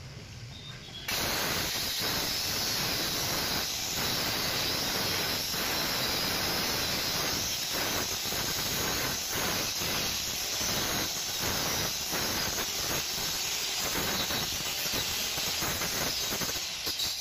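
Handheld electric cutter machine switched on about a second in and run steadily with its blade in plywood as it is swung around a centre nail, cutting a circular groove. This is one of several shallow passes, the blade lowered a little each time. It stops near the end.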